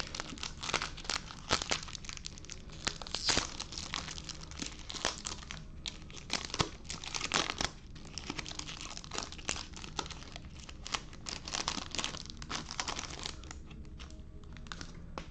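Foil wrapper of a Topps Chrome baseball card pack crinkling and tearing as gloved hands peel it open. It comes in quick, irregular crackles that thin out near the end.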